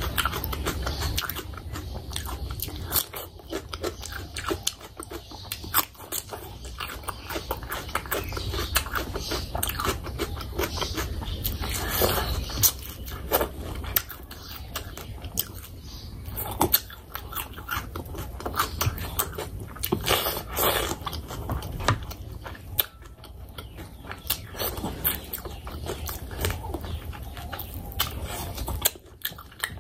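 Close-miked chewing and biting of fish curry eaten by hand, with wet smacking and clicking mouth noises.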